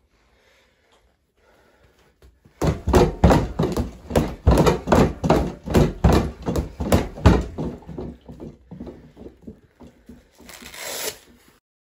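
Boxing gloves hitting a free-standing Everlast punching bag in a fast flurry of punches, about four or five thuds a second, starting about two and a half seconds in and tapering off. A short rushing noise follows near the end.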